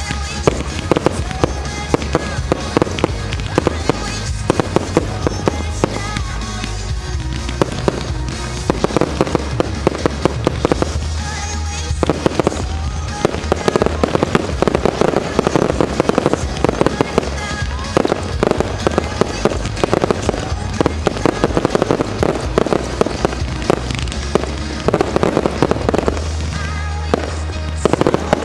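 Fireworks finale: a dense barrage of firework bursts and crackles, several reports a second with no break, with music playing underneath.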